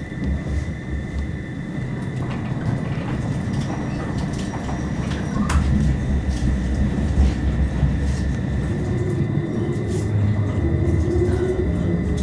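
Rhaetian Railway electric train running on the Bernina line, heard from inside the carriage: a steady low rumble of wheels on rail with a constant thin high whine and scattered short clicks.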